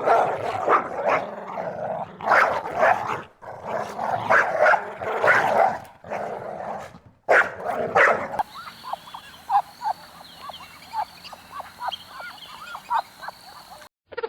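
A dog barking repeatedly in quick clusters for about eight seconds. It then cuts abruptly to a quieter run of short, evenly spaced high peeps from a small animal or bird.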